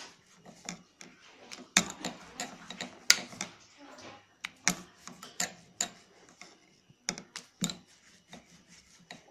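Plastic rolling pin rolling out a small sheet of fondant on a hard worktop: irregular knocks and clicks from the pin and hands, with soft rubbing between them.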